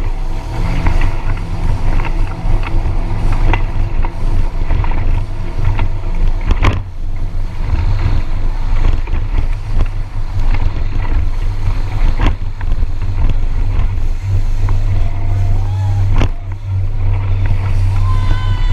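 Boat motor running with a steady low drone, water rushing and splashing around the hull, and a few sharp knocks.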